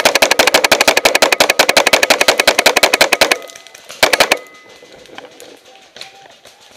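Tippmann X7 Phenom paintball marker firing a long rapid-fire burst of about a dozen shots a second for over three seconds, then a second short burst about four seconds in, loud and close from a camera on the marker itself.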